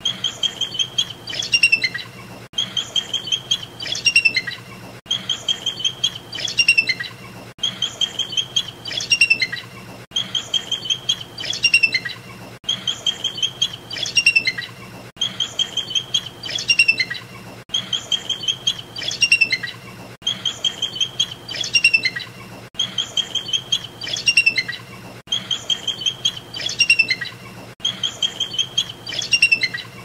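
Bald eagles calling: a high, chattering series of quick piping notes, then squeaky falling notes, repeating identically about every two and a half seconds over a faint low hum.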